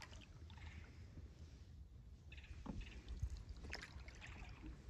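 Canoe being paddled through calm water: soft paddle swishes and drips, with two light knocks a little past halfway.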